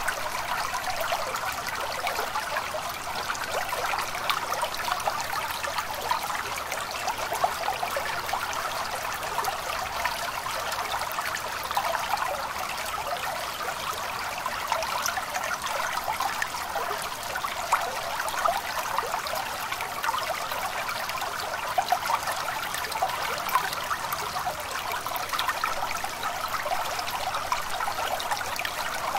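A small stream trickling and burbling steadily, with a constant patter of tiny splashes.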